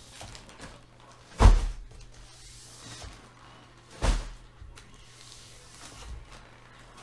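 Three dull thuds on a tabletop, about two and a half seconds apart, with faint room noise between them.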